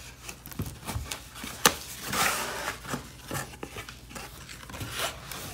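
Cardboard box being opened by gloved hands: a sharp snap of the flap about two seconds in, then brief rustling and scraping of the cardboard, with scattered light clicks and taps.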